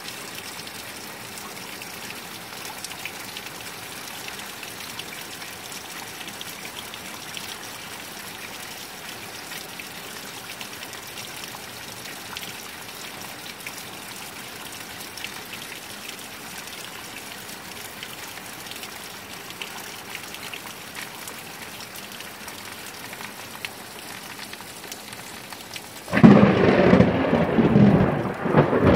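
Heavy rain pouring down with a steady hiss. Near the end a sudden, very loud crash of thunder breaks in and keeps rumbling.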